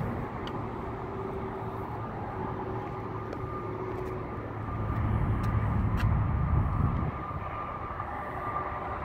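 Outdoor ambience: a rough low rumble with a faint steady hum, swelling between about five and seven seconds in.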